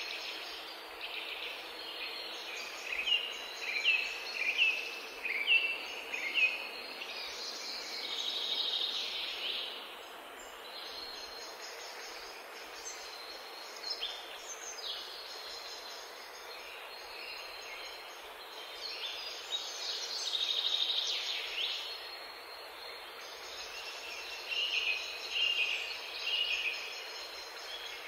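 Small birds singing over a steady background hiss: a quick run of about six short, downward-sweeping chirps a few seconds in, longer phrases around the middle, and another cluster of chirps near the end.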